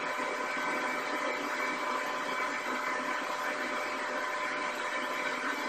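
Steady hiss with a few faint, unchanging hum tones: the background noise of a room recording.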